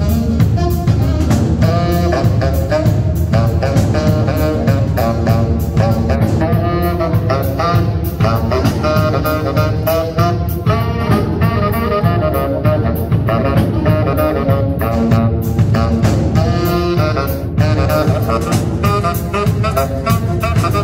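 Live jazz band: saxophones playing a melody together over a drum kit keeping a steady beat, with bass underneath.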